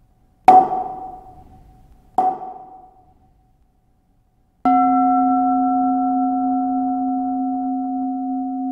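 Meditation bells: two short struck chimes that ring briefly and die away, then about halfway through a deeper singing bowl is struck and rings on steadily, a low hum with higher overtones, fading only slowly.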